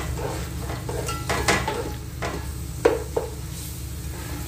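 Metal spoon stirring spices into oil and browned onions in a metal cooking pot, scraping and clinking against the pot's side, with a faint sizzle from the hot oil. A few sharp clinks stand out, the loudest about three seconds in, over a steady low hum.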